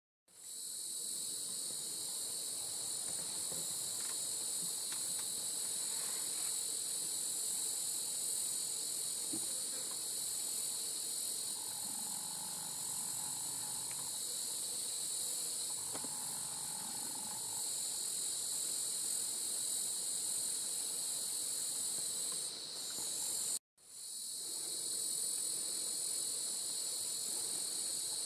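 Steady, high-pitched insect chorus, an unbroken shrill buzzing that drops out for an instant near the end and then resumes.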